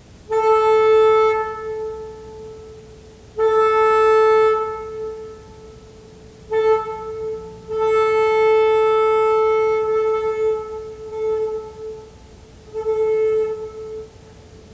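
Leslie S2M locomotive air horn blown in five blasts on one steady pitch, the fourth the longest at about four seconds.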